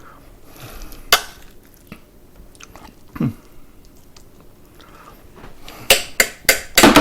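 Serving rice onto a plate: a utensil knocking against the pot and plate, with a sharp knock about a second in, a duller knock around three seconds, and a quick run of taps near the end as the spoon is knocked clean.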